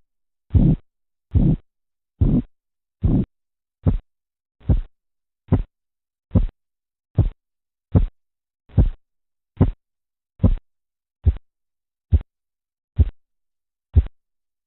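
Korotkoff sounds heard through a stethoscope over the brachial artery as the blood pressure cuff deflates. The pulse beats come evenly, a little more than one a second. The early beats are longer and fuller, and they become shorter and sharper toward the end.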